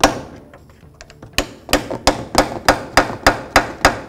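Hammer striking a steel pry bar wedged between the steering knuckle and lower control arm: one sharp metal strike, then after a pause a quick run of about ten strikes at about four a second, driving the pry bar in to break loose a rust-stuck lower ball joint.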